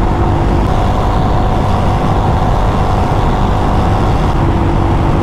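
Royal Enfield Himalayan's single-cylinder engine running steadily at highway cruising speed, mixed with a loud, even rush of wind and road noise.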